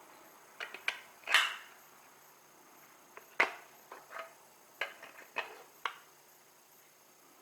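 Hard objects being handled: about ten irregular light clicks and knocks, with the loudest knock about a second in and a sharp one near the middle.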